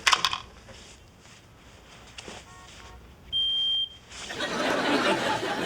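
Smoke detector giving one short, steady, high-pitched beep about three seconds in. Sharp knocks come right at the start, and a broad wash of noise swells in the last second and a half.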